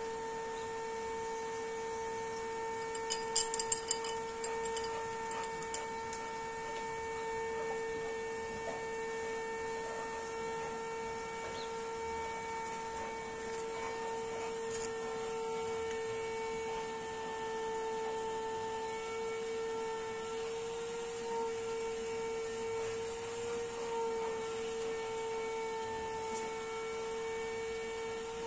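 Steady, even hum at one pitch, like a motor or electrical hum, with a short burst of sharp clicks about three to five seconds in.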